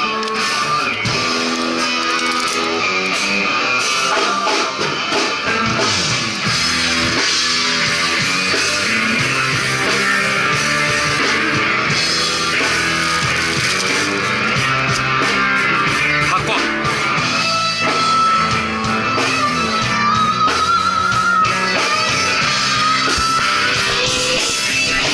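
A live band playing rock music, with guitar and drums.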